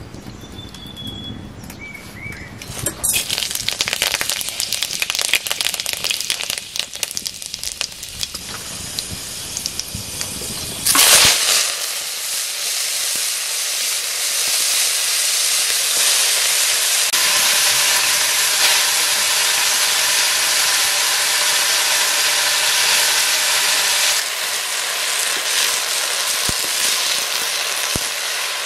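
Hot oil crackling in a black iron wok over a wood fire from about three seconds in. About eleven seconds in comes a loud burst as mustard greens go into the oil, followed by a steady sizzle and hiss as they fry and steam.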